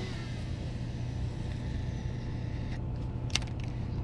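Steady low mechanical hum, like a motor running, with a faint hiss that fades out a little before three seconds in and a single short click just after.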